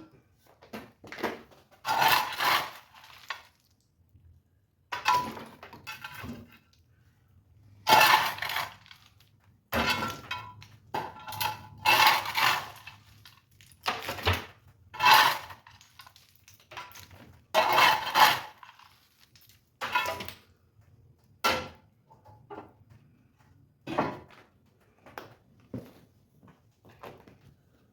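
Black walnuts and their hard shells clattering and knocking, with some metallic clinks, in irregular bursts every second or two, some lasting about a second.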